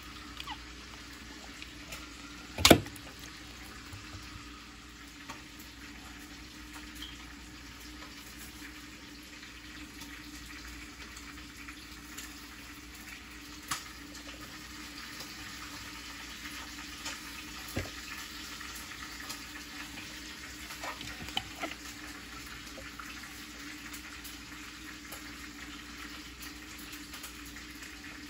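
Steady hiss like a running kitchen tap, with a few light knocks and clicks and one sharp knock about three seconds in, as a whole raw fish is handled and seasoned in a basin.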